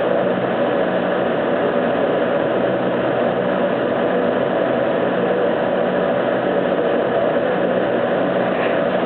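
Laser cutter running, a steady hum and rush of air from its fans and extraction, with no change throughout.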